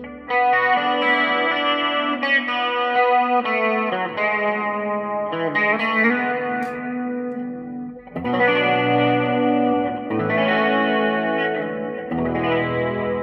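Electric guitar played through a Marshall Code modelling amp using the amp's built-in effects. The amp sits directly on the floor, giving its original, unmodified sound. Chords and notes are picked with a new attack every second or two, with a short break a little after the midpoint.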